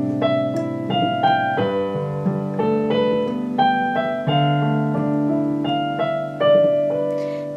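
Piano playing the song's introduction: single notes and chords struck a few times a second and left ringing over one another.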